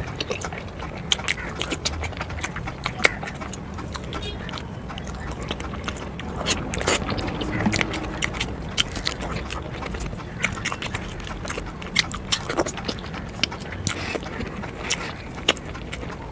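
A person chewing and eating spicy eggs, with irregular wet mouth clicks and smacks throughout.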